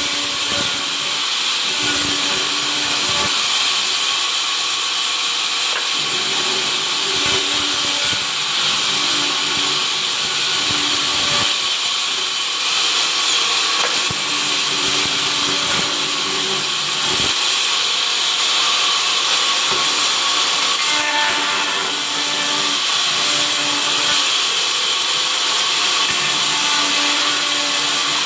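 Vertical sawmill running steadily on its first test run: a loud, noisy high whir, with a lower hum that swells and fades every few seconds.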